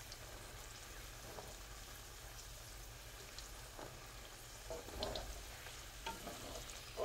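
Bananas frying in shallow oil in a nonstick pan, a faint steady sizzle with a few soft knocks now and then.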